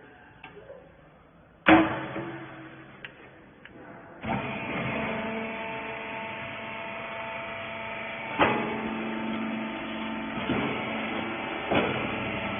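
Hydraulic bagging baler running: a sharp metal clank about a second and a half in, then from about four seconds a steady motor-and-pump hum with a few held tones, broken by two more sharp clanks.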